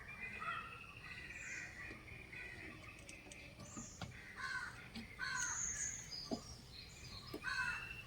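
Crows cawing repeatedly, with a few faint clicks in between.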